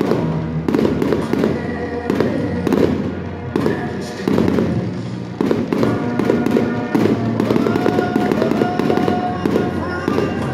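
A fireworks display: shells and crackling effects going off in quick, near-continuous bangs, with music with held notes playing loudly at the same time.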